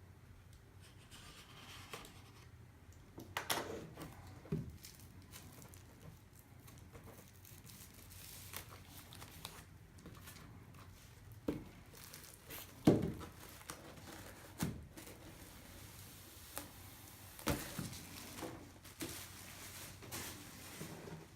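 Hands opening a vinyl record's packaging: scattered tearing and crinkling, with a few sharper knocks and rustles.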